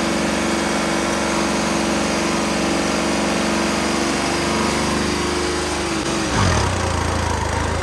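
New Holland 3630 tractor's diesel engine running steadily at raised revs, then the revs drop sharply to a low idle about six seconds in.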